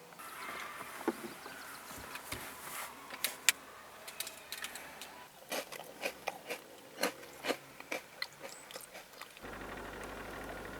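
Crunchy eating, a person biting and chewing crackers, with many short crisp crunches. About nine and a half seconds in, the Volvo's engine starts and runs at a steady idle.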